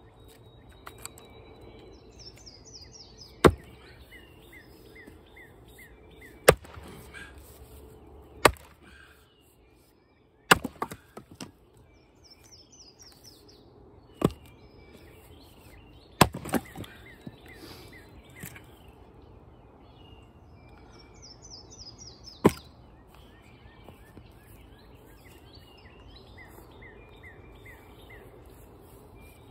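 A splitting axe striking firewood rounds, about seven sharp blows a few seconds apart, some followed by a short clatter of split pieces. Birds sing in the gaps between the blows.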